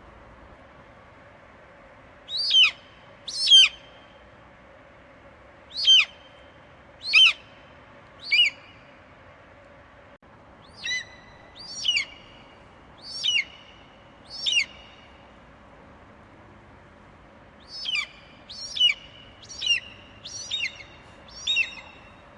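Eagle calling: short, shrill, downward-sweeping cries, about one a second, in three bursts of five or six calls with pauses of a few seconds between them, over a faint steady background hiss.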